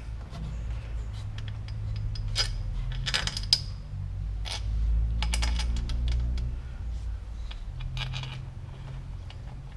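Steel bolts clinking as they are handled and set into the tappet cover by hand: a few sharp metallic clicks, clustered around the second to fifth seconds and again near the end, over a steady low hum.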